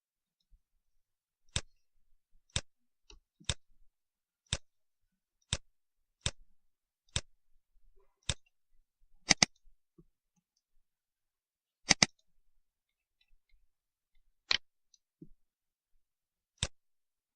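Computer mouse buttons clicking, single clicks about once a second with two quick double-clicks in the middle.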